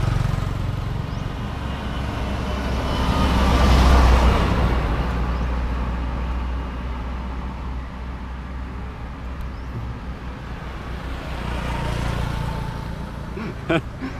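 Motor vehicles passing on the road, including a motorbike: engine and tyre noise swells past at the start, again louder about four seconds in, and once more near the end over a steady low rumble. A few sharp clicks come just before the end.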